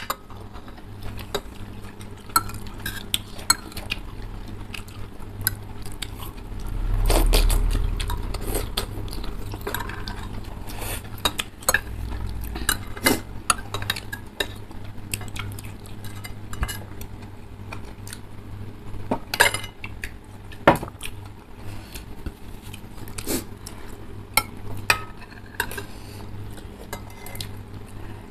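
Metal forks and spoons clinking and scraping against ceramic bowls of soupy noodles, with many scattered sharp clinks. A louder low swell comes about seven seconds in.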